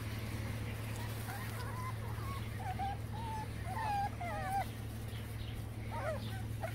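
Young Boston terrier puppies whimpering and whining, a string of short wavering high-pitched cries, with a quick cluster of them near the end.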